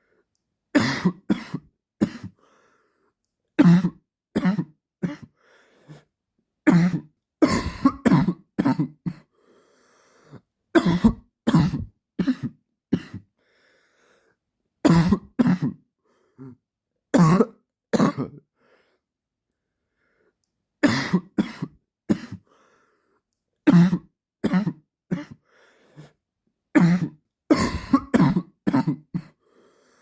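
A man's dry cough in repeated fits of several short, sharp coughs, with a second or two of silence between fits.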